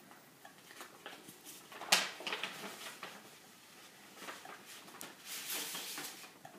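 Paper rustling and crinkling as a large manila envelope is opened and papers are slid out of it, with one sharp click about two seconds in.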